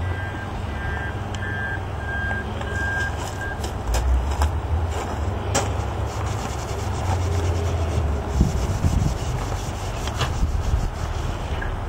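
A cloth pad rubbing across a hazed plastic headlight lens as it is polished with restorer, over a low steady rumble. A series of short, even beeps like a reversing alarm sounds during the first three seconds or so.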